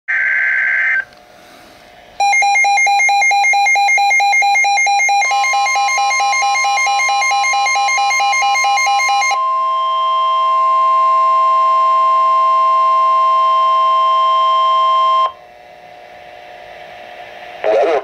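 Weather alert radio sounding a severe thunderstorm warning through its speaker. A brief high warbling data burst comes first. From about two seconds in, the radio's rapid pulsing alert beep sounds, overlapped from about five seconds by the NOAA Weather Radio's steady 1050 Hz warning alarm tone, which runs on alone until about fifteen seconds in.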